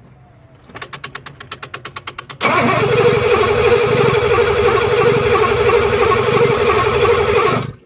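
1983 Mercedes 380SL's V8 cranking on the starter for under two seconds, then catching and running loud and steady for about five seconds before cutting off suddenly. It comes from a car with a crank-no-start fault that runs only momentarily.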